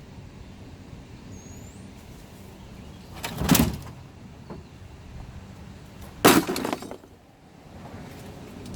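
Two loud clattering crashes about three seconds apart, each lasting about half a second, like hard objects being dropped or thrown onto a pile.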